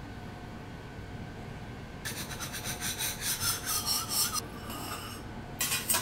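Metal spatula scraping across the steel teppanyaki griddle in quick, rasping strokes, starting about two seconds in and lasting a couple of seconds, with one more short scrape near the end.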